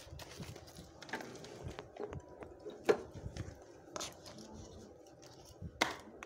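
Handling noise: irregular clicks and knocks over low rustling, with a sharp knock about three seconds in and another just before the end.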